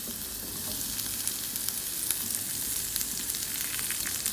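Carrots frying in hot oil in a pan: a steady sizzle with many small crackles.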